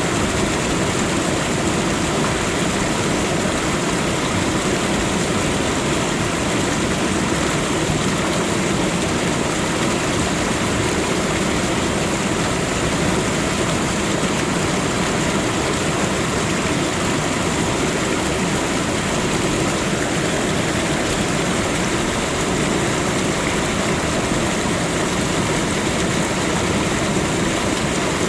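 Waterfall: water falling and crashing in a steady, dense rush of noise that does not change.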